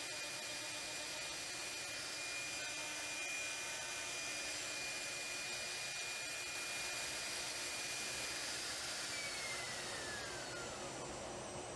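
CNC router spindle running at 18,000 RPM with a steady high whine, over the hiss of the dust extraction, while cutting Baltic birch plywood. About nine seconds in the spindle spins down, its whine falling in pitch.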